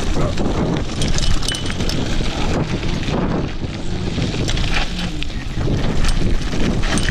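Wind buffeting the microphone over the rush of a mountain bike's tyres on a loose dirt and gravel track at speed, with frequent sharp clicks and rattles from the bike over stones.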